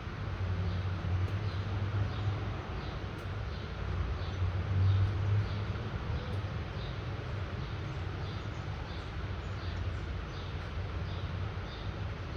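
Light rain falling in a steady hiss, with a low rumble underneath and a faint high chirp repeating about twice a second.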